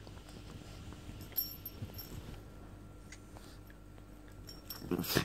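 Two small dogs play-wrestling: quiet scuffling and mouthing with scattered light clicks, then a short, louder burst near the end as play growling starts.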